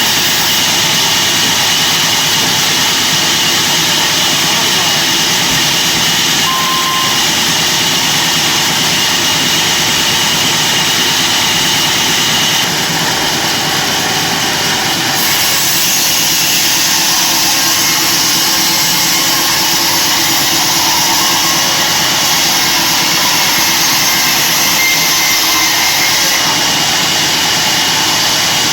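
Sawmill log bandsaw running with a steady, loud hissing whine. The level stays even throughout, with small shifts in tone about six seconds in and again between about twelve and fifteen seconds in.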